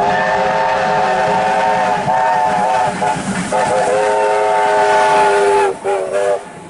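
VL class diesel locomotive's air horn sounding a chord of several notes in long blasts, with a brief break about three seconds in and one short blast near the end.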